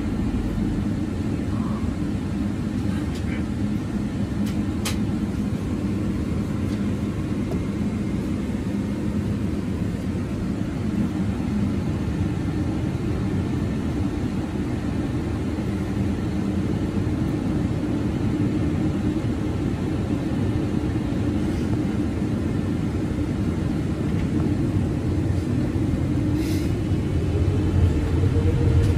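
Cabin noise of a Boeing 777-300ER's GE90 engines and airframe on the runway: a steady low rumble, with a rising engine tone and heavier rumble near the end as thrust builds for the takeoff run.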